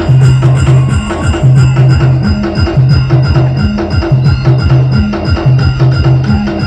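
A live band playing loud, upbeat music: quick, steady drum and percussion strokes over a bass figure that repeats about every second and a half.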